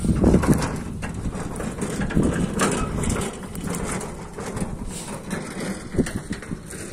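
An empty sheet-metal two-wheeled hand cart rattling as it is wheeled over rough ploughed soil, mixed with crunching footsteps in the dirt. It makes a run of short knocks and crunches that are loudest at the start and ease off after the first second.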